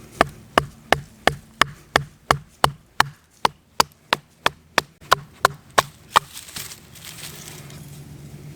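Wood being struck hard and repeatedly: about twenty sharp knocks at roughly three a second, stopping about six seconds in.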